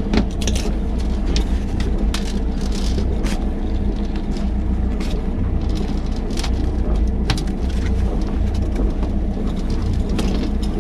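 A boat's engine running steadily at idle, a low, even drone, with scattered clicks and rustles from handling fishing line and gear.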